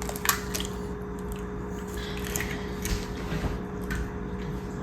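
Egg and seasoned chopped chicken being handled in a bowl: faint scattered clicks and soft wet squishing over a steady low hum.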